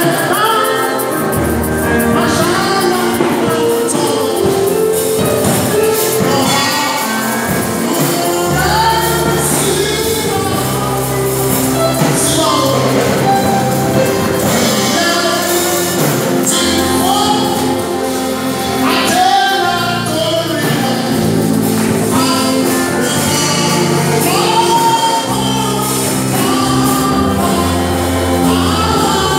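Choir and congregation singing a gospel worship song over live instrumental accompaniment, with moving bass notes and percussion keeping a steady beat.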